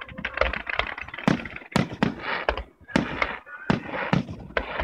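Fireworks display: aerial shells bursting in a quick string of loud bangs, about one to two a second, over continuous crackling from the ground fountains and shell stars.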